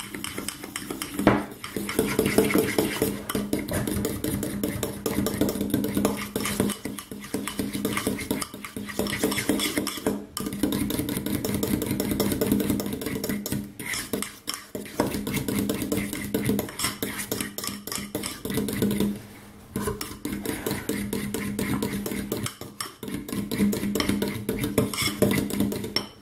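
Metal fork beating a thick, creamy mixture of fromage frais and egg in a ceramic bowl: quick, continuous strokes scraping and clinking against the bowl, with brief pauses a few times. It is being mixed until smooth like mayonnaise.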